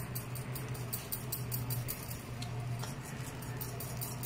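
A low steady hum under faint room noise.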